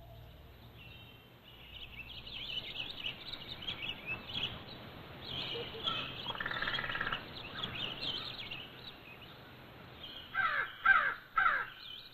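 Birds chirping and calling in a busy, overlapping chorus, then three loud, harsh falling calls in quick succession near the end.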